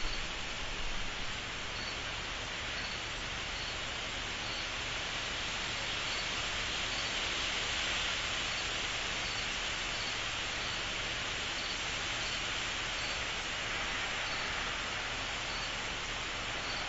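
Steady, dense chorus of calling insects, a continuous shrill hiss, with one higher-pitched chirp repeating roughly once a second.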